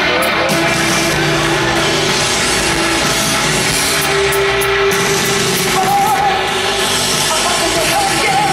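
Post-punk rock band playing live at full volume: drums, electric guitar and bass, with a singing voice in places.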